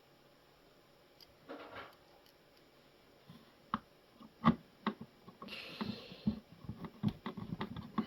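Quiet at first, then scattered clicks and knocks of plastic machine parts and tools being handled during reassembly of a coffee machine, with one sharp knock halfway through, a short rustle, and a quicker run of small knocks near the end.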